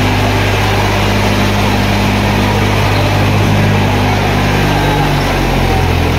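Tractor diesel engine running loudly and steadily, with a deep even hum; its pitch drops slightly near the end.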